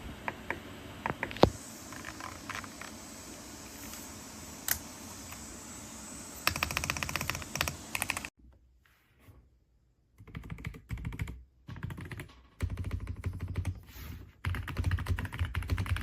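Keystrokes on a Royal Kludge RK R75 mechanical keyboard: scattered single key presses at first, then fast runs of typing. The typing breaks off into near silence about eight seconds in and resumes in bursts about two seconds later.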